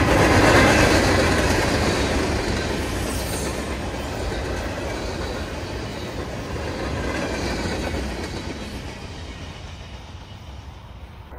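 Freight train cars rolling past on the rails, loudest at first and fading as the last cars go by and the train moves away.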